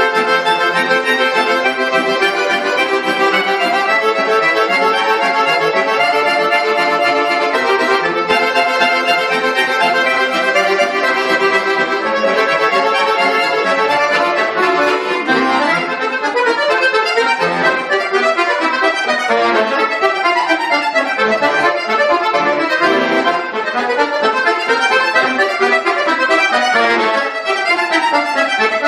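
Bayan (Russian button accordion) playing a piece: full held chords under a melody, moving into quicker running passages about halfway through.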